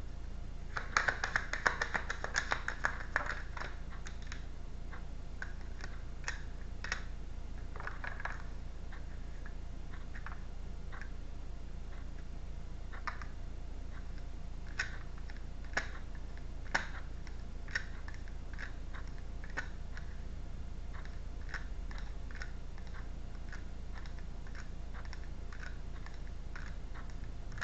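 A deck of tarot cards being shuffled by hand: a quick flurry of card flicks and snaps about a second in, then scattered single clicks of cards slipping through the fingers, over a low steady hum.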